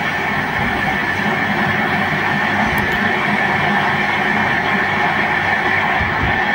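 Audience applauding steadily, heard through a television's speaker.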